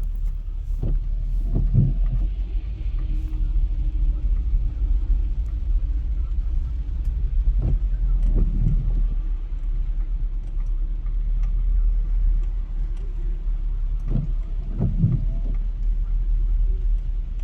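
Steady low road rumble of a car heard from inside the cabin. Pairs of soft low thumps come about every six and a half seconds, three times.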